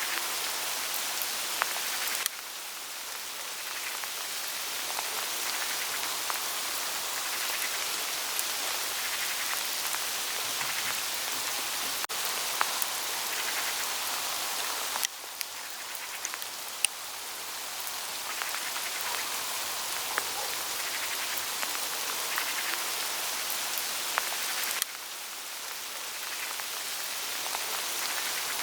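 Hail falling on autumn forest foliage: a dense, steady hiss of many small ticks on leaves, with a few louder single hits. Three times the level drops suddenly and then builds back over a few seconds.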